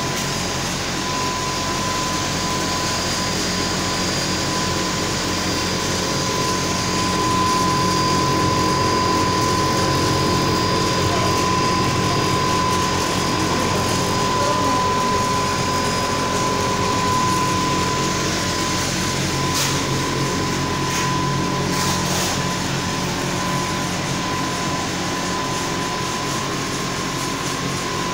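Machinery running steadily: an even mechanical noise with a constant high whine and a low hum. A few faint clicks come about two-thirds of the way through.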